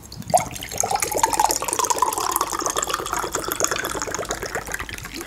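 Soda poured from an aluminium can into a glass: a steady splashing pour with dense crackling, its pitch rising over the first second or two as the glass fills.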